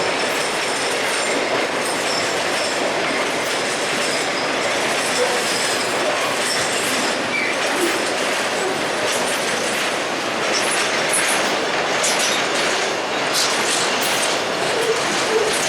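Bangladesh Railway freight train rolling past, its wagons' wheels clattering steadily on the track, with faint high wheel squeal early on and sharp clicks near the end.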